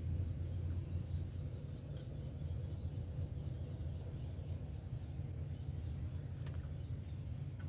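An insect's high, thin trill repeating in short spells about once a second over a steady low rumble.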